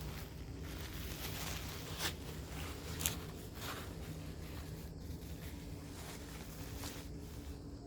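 Light rustling and handling noises, with a sharp click about two seconds in and another about three seconds in, over a steady low background hum.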